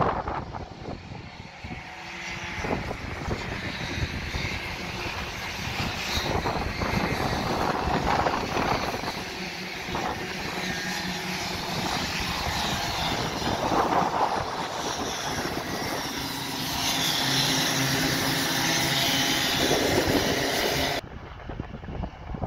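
Engines of several racing karts passing on the circuit, revving up and down, swelling as the karts come close and fading as they pull away. The sound drops sharply near the end.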